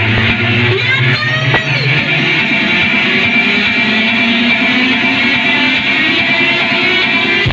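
Loud amplified music with a guitar-like lead, played on without a break.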